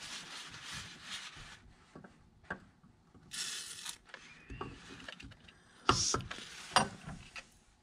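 Paper towel rubbing over an A/C line fitting as WD-40 is wiped onto its O-rings, with a short hiss a little over three seconds in and scattered sharp clicks and knocks against the metal parts, the loudest two about a second apart near the end.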